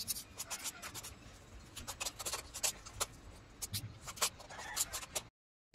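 Two metal forks scraping and clicking against a stainless-steel bowl as they pull boiled chicken apart into small pieces: irregular light clicks and scrapes. The sound cuts off suddenly near the end.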